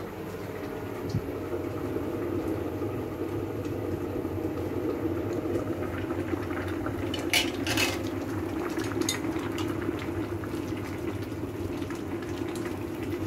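Pot of water with vermicelli boiling at a steady bubble, with a few short clatters of a utensil against the pot around the middle.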